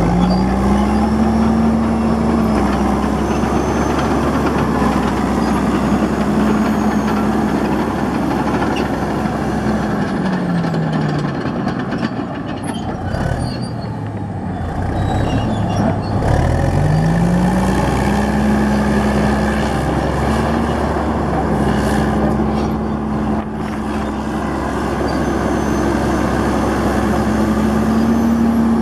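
Caterpillar D9H crawler dozer's diesel engine revving up and running at high speed as the machine travels. The engine drops back to a lower speed about ten seconds in, then revs up again around seventeen seconds and holds there.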